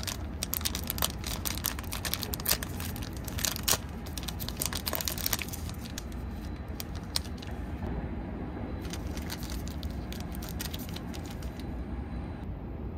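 Plastic snack packaging crinkling and crackling as it is handled, in dense irregular bursts that thin out midway and die away near the end, over a steady low background hum.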